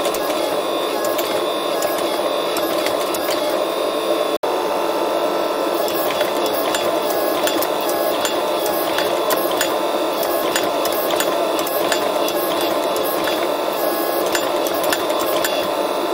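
Forging press running steadily as it squeezes a glowing damascus steel billet: a continuous mechanical whir with fast fine ticking. The sound cuts out for an instant about four seconds in.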